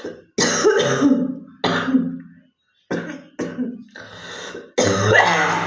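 A girl coughing repeatedly, with short gaps between coughs; the last cough is the longest and loudest.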